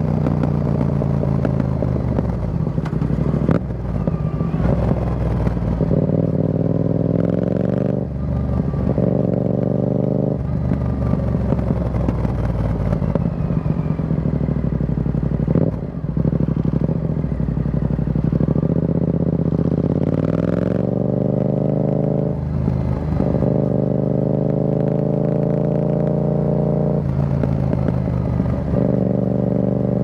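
Yamaha XSR700's parallel-twin engine through an Akrapovic carbon full exhaust system with the dB killer removed, running loud under way. The exhaust note climbs in pitch and drops back about half a dozen times as the rider opens and closes the throttle.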